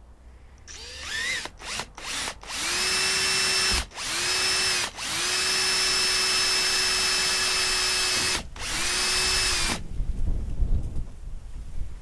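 Cordless drill with a 10 mm bit boring through the Royalex bow of a canoe, enlarging a pilot hole. A few short trigger blips rise in pitch, then the drill runs four times at a steady speed, the longest about three seconds. It stops near the end, and rough handling knocks follow.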